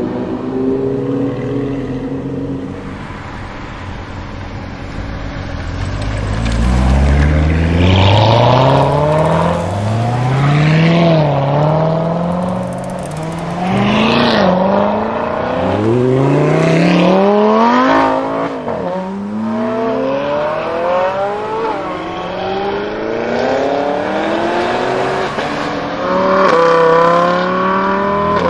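Lamborghini Huracán LP610-4's V10 with a Capristo exhaust, loud. It runs at low revs for a few seconds, then accelerates hard through several gears, the pitch climbing and dropping back at each upshift.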